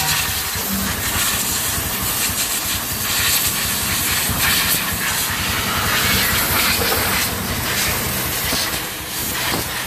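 Pressure-washer water jet spraying a quad bike, a steady loud hiss with a low hum underneath.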